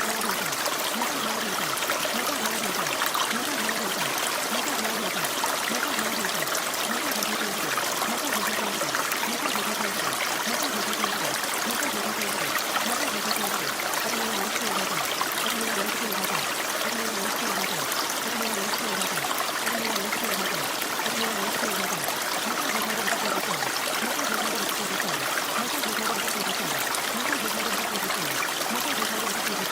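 Steady rain: an even hiss of water with many short low drips and trickles throughout, unchanging in level.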